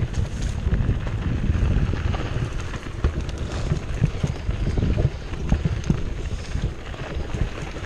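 Wind rushing over a chest-mounted camera's microphone as a 2015 Cannondale Jekyll 4 mountain bike rolls down dirt singletrack. The tyres rumble over the ground and the bike gives irregular knocks and rattles over bumps.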